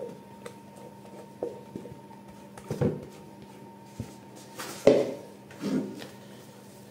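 Silicone spatula scraping and knocking against plastic bowls as whipped egg whites are scraped out: a handful of short scrapes and knocks, the loudest about five seconds in. A faint steady hum runs underneath.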